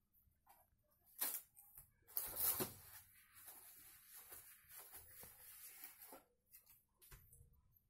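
Household containers being handled: two sharp knocks in the first three seconds, then a stretch of rustling and light clatter that fades out about six seconds in.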